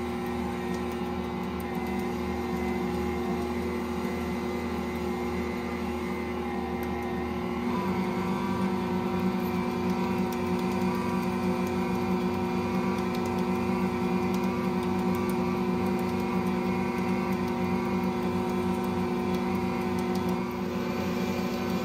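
Electric stand mixer running steadily, its rotating bowl and dough roller kneading stiff bread dough; a little louder from about eight seconds in.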